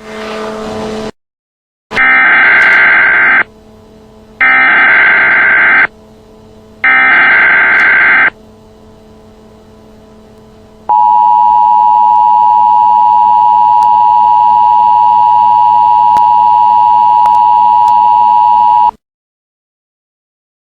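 Emergency Alert System tones: three loud, shrill warbling digital data bursts, each about a second and a half long with a second's gap between them, followed by the EAS attention signal, a steady, harsh two-note electronic blare held for about eight seconds that cuts off suddenly. These mark the start of a new alert. A short tone sounds at the very start.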